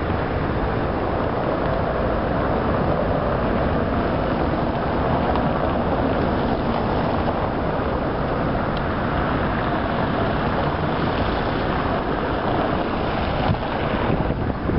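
Steady rushing noise of wind on a handheld camera's microphone, with city street traffic underneath; it turns more gusty and uneven near the end.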